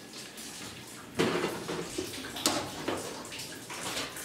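Kitchen tap running while whole tomatoes are rinsed and dropped into a plastic blender jar, with a few sharp knocks, the first about a second in and two more near the middle.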